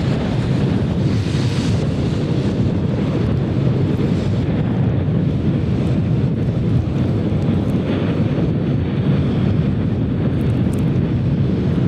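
Airbus A321neo's jet engines at takeoff thrust just after liftoff, a steady low rumble as the airliner climbs away.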